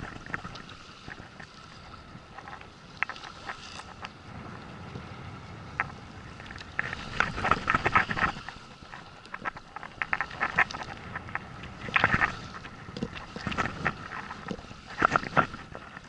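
Sea water slapping and splashing against the side of a small inflatable boat in bursts, about three times, over a steady wash of wind and water.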